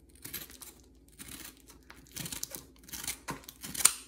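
Scissors cutting open a plastic mailer bag: the plastic crinkles and rustles in irregular bursts as the blades work through it, the loudest sharp crackle near the end.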